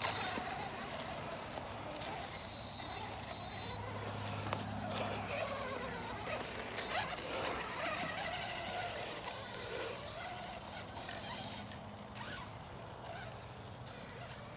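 Arrma Big Rock 3S BLX RC monster truck's brushless motor and steel spur gear whining as it is driven over the trail. The pitch rises and falls with the throttle, with a few short knocks.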